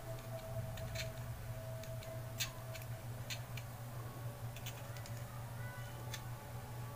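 Small, irregular clicks and taps from handling the parts of a Zippo lighter insert while its cotton wadding is packed, the sharpest about two and a half seconds in, over a steady low hum.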